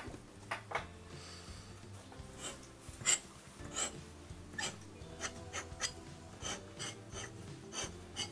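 Folded pen's metal nib scratching across paper in a series of short strokes as it letters with ink; the loudest stroke comes about three seconds in.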